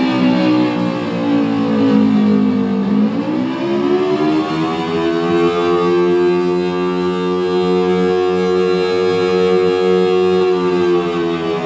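Synthesized Thunderbolt 1000T siren tone (low-pitch 4/5-port sound) played through a karaoke machine speaker, sounding an attack signal: its pitch sinks for about three seconds, climbs back up and then holds steady.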